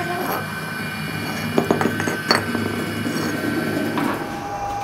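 A few sharp clinks of steel parts: a pinion shaft and its flange being handled against each other and the concrete floor. There are two quick clinks about a second and a half in and another a moment later, over a steady background hum.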